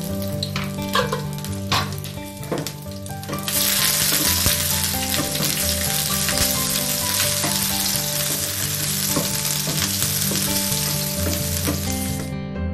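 Green chillies frying in hot oil in a non-stick pan and being stirred with a wooden spatula. A few sharp knocks come first, then a loud, dense sizzle starts about three and a half seconds in and cuts off suddenly near the end.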